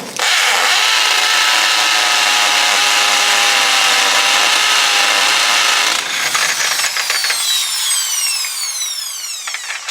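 Electric hammer drill on hammer setting boring into a concrete column with a masonry bit, running steady and loud for about six seconds. The trigger is then let go and the motor winds down with a falling whine that fades out near the end.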